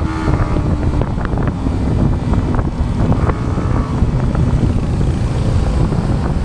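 Yamaha MT-15's single-cylinder engine running at road speed under heavy wind noise on the microphone. The engine note drops right at the start as the bike slows from about 100 km/h.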